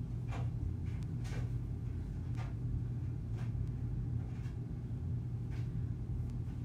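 Steady low hum of room noise, with a faint click about once a second.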